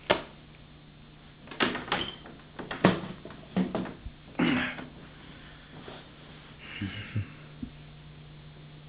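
A sharp knock, then a string of knocks, bumps and brief rustling clatters over the next few seconds, with a few fainter taps later, over a steady low hum.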